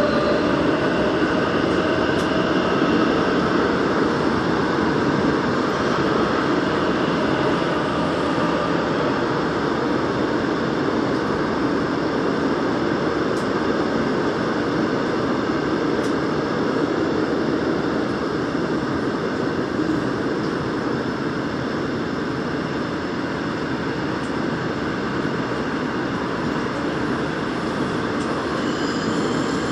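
Daegu Metro Line 2 train running through a tunnel, heard from inside the leading car: a steady rumble of wheels on rail. A faint higher whine comes in near the end.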